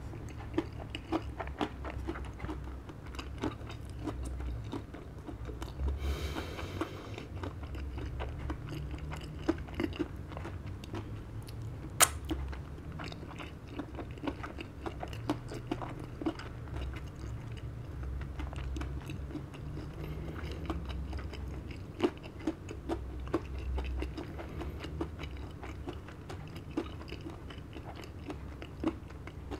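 Close-up sound of a person chewing a large mouthful of KFC Double Down fried chicken burger, with many small wet clicks and smacks at an uneven pace and one sharp click about twelve seconds in.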